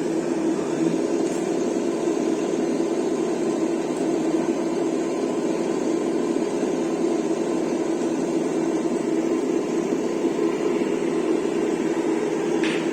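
Simulated engine sound from an RC truck's sound module, running steadily without revving.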